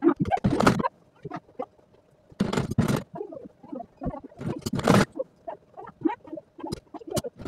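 Sewing machine stitching in three short runs of rapid needle clatter, with scattered single clicks between the runs.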